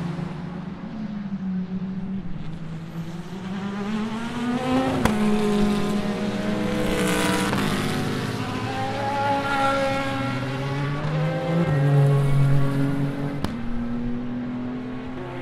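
Endurance race cars' engines running through a corner, several at once, their notes climbing as they accelerate and dropping at each gear change. There is a sharp crack about five seconds in and another near the end.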